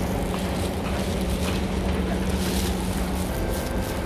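Running noise of a Siemens C651 MRT train heard from on board: a steady rumble of wheels on track, with a steady low hum that stops about three seconds in.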